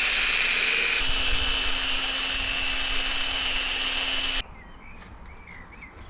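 Drill running a sanding disc on a plastic headlight, a steady whine. It shifts slightly about a second in and cuts off suddenly after about four and a half seconds.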